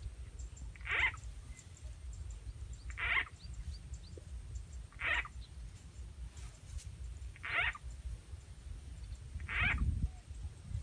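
A frog call repeated five times, one short call about every two seconds, over a steady low rumble.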